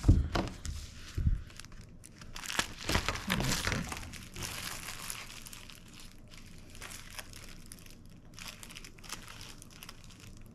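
Clear plastic binder pockets crinkling as they are handled and leafed through, in irregular bursts that are busiest a few seconds in and lighter later, with a couple of soft knocks on the table near the start.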